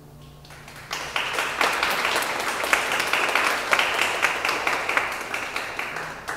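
Audience applause that breaks out about a second in, after the song's last note has died away, marking the end of a live performance; many hands clapping together.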